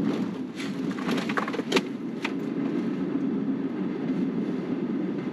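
Steady low rumble of a moving vehicle, with a few sharp clicks and knocks in the first two or three seconds.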